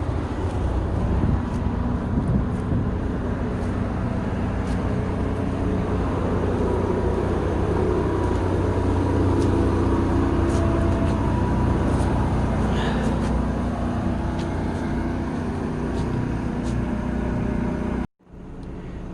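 An engine running steadily: a low, even drone with a faint steady whine above it. It cuts off suddenly near the end.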